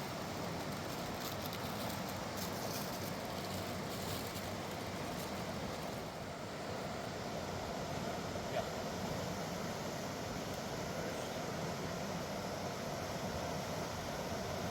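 Mountain river roaring over large rocks: a steady, even rush of water, with one small click a little past halfway.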